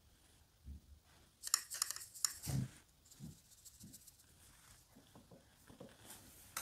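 Quiet handling of watercolour painting tools: a short run of crisp clicks and scrapes about a second and a half in, then a soft knock and a few fainter taps.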